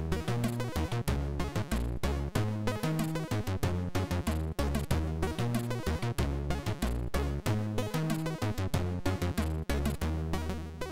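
Commodore 64 SID-chip music: a chiptune with a stepping bass line under fast higher notes and frequent sharp, noise-like drum hits.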